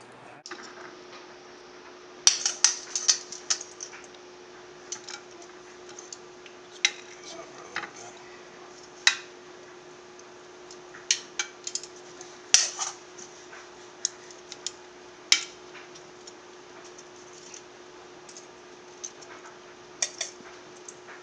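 Metal tongs clicking and clinking against a ceramic plate as food is served onto it: scattered sharp clinks, some in quick clusters.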